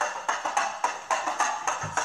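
Rhythmic percussion music of sharp, struck beats, about five a second.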